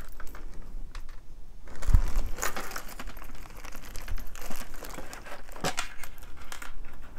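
Costume jewelry being handled and sorted: crinkling with many small clicks and taps of metal and beaded earrings, and a low thump about two seconds in.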